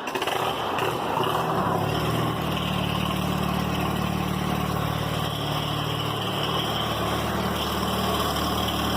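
An engine idling steadily, growing a little fuller about two seconds in.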